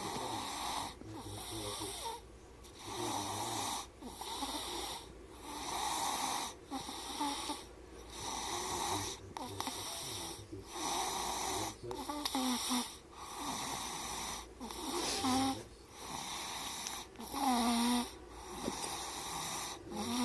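Sleeping baby snoring, one noisy breath about every two seconds in a regular rhythm. A few breaths in the second half carry a brief squeaky pitch.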